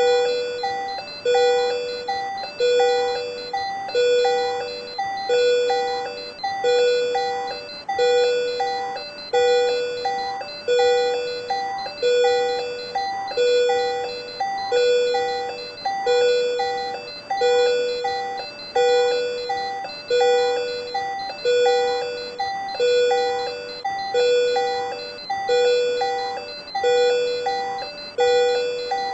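Patient monitor alarm sounding for SVT (supraventricular tachycardia): a repeating electronic chime, one about every second and a half, each starting sharply and fading away.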